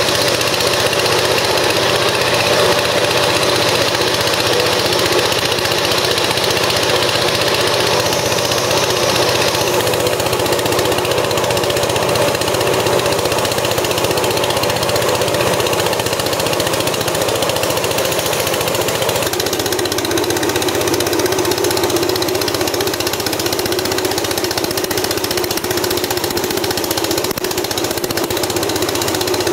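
Rice thresher running steadily while bundles of rice stalks are fed in, a loud continuous mechanical hum with a rushing noise from the threshing. The hum drops slightly in pitch about two-thirds of the way through.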